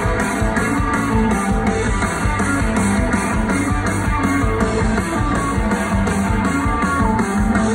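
Psychedelic rock band playing live through a concert PA: electric guitars, bass and drums loud together, with cymbals keeping a steady pulse of about three to four strokes a second.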